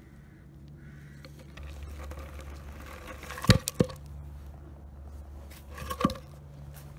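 A steady low hum with a few sharp clicks: two close together about three and a half seconds in and another about six seconds in.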